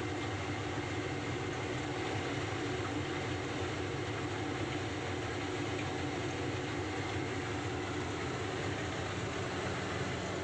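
Heavy machinery at a quarry running steadily, a constant mechanical rumble that does not change in level.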